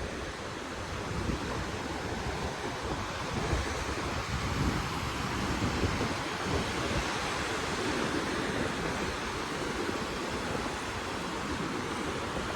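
Wind buffeting the microphone over Pacific Ocean surf washing onto the beach: a steady hiss with a gusty, uneven low rumble.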